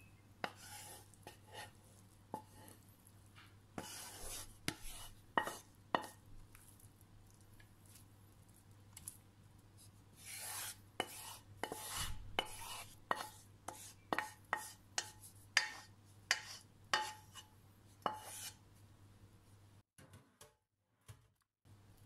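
Wooden spatula scraping and knocking against a frying pan and a foil-lined baking tray as cooked minced meat is scooped out and spread, in irregular strokes that stop a few seconds before the end.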